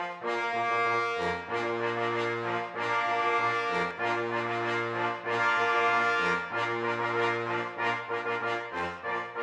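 Instrumental music with brass, over a bass line that steps to a new note about every second.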